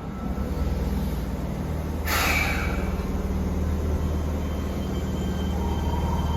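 Fukuoka City Subway 1000N series train at a station, its equipment making a steady low drone. A short hiss comes about two seconds in, and a faint tone rises near the end.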